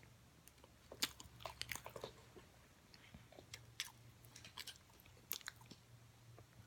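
Close-up crunching of oven-baked cornstarch chunks being bitten and chewed: clusters of sharp, crisp crackles and snaps, with quieter stretches between bites.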